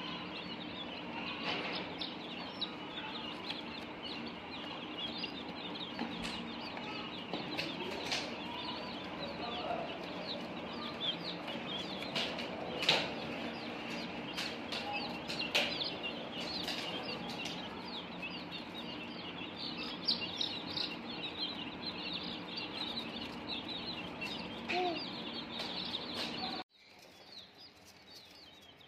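Many young chicken chicks peeping continuously, a dense chorus of short high cheeps, over a steady low hum, with a few light knocks. It cuts off abruptly a couple of seconds before the end.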